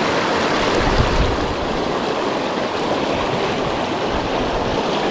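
Shallow, rocky creek rushing over stones in a riffle, a steady dense water noise. A brief low bump about a second in.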